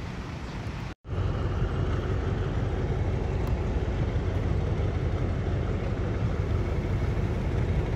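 Alsthom diesel-electric locomotive running as it hauls a passenger train slowly past, a steady low rumble. A brief dropout about a second in separates it from quieter, more distant noise.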